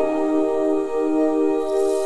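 Calm background music: a chord of long held notes with no beat.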